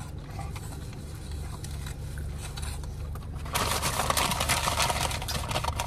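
A low, steady hum inside a car. About three and a half seconds in, paper food wrapping starts crinkling loudly and goes on to the end.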